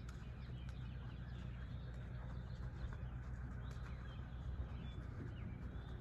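Birds chirping now and then over a steady low rumble of outdoor background noise.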